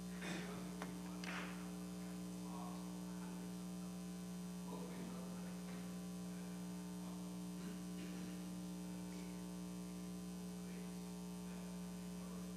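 Steady electrical mains hum, a constant low tone, with a few faint brief sounds in the first couple of seconds.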